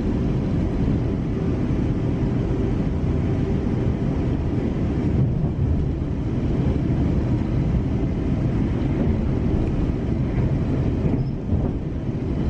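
Passenger train running at speed, heard from inside the carriage: a steady low rumble of wheels on the track and running gear.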